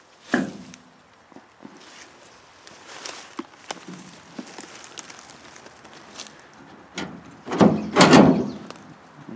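Footsteps and knocks of someone moving around and handling things: a sharp knock just under half a second in, scattered clicks and ticks, then a louder clattering bang with a rattle near the end.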